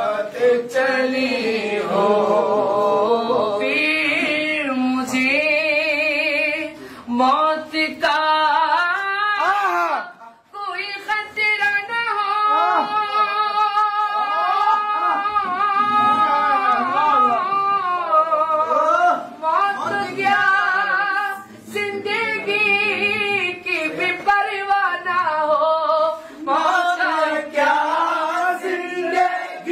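A man reciting a naat, singing unaccompanied in long, ornamented held notes with a wavering pitch. The singing breaks off briefly about ten seconds in, then resumes.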